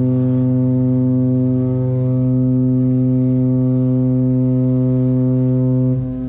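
A deep horn blowing one long, steady note with many overtones, the horn behind the Boston Bruins goal horn. Its level drops near the end.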